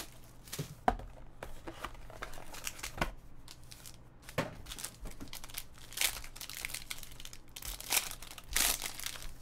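Paper wrapping and a sealed foil trading-card pack being torn open and crinkled by hand: irregular crackling and rustling, with a few louder rips toward the end.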